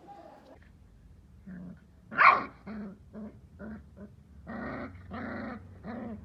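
Dog growling and barking in a string of short barks, with one loud bark about two seconds in and longer, growly barks near the end.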